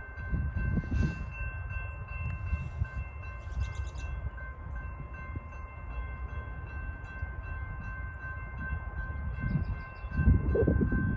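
Low rumble with wind gusting on the microphone about a second in and again near the end, under steady high ringing tones from a railroad grade-crossing warning bell.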